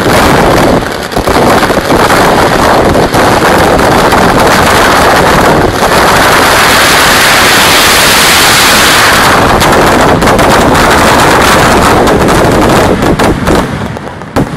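A ground-level fireworks barrage: a dense, continuous run of rapid explosions, very loud, dying away near the end.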